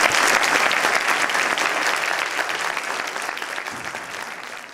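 Lecture audience applauding, dense clapping that fades gradually away toward the end.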